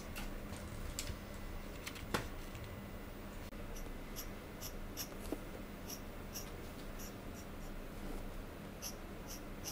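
Dip pen nib scratching across paper as it inks short hatching strokes, about two to three strokes a second from about three seconds in, over a faint steady hum.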